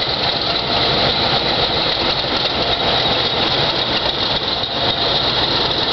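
Two DE-class diesel-electric locomotives running steadily as they roll slowly past, their engine noise continuous and even.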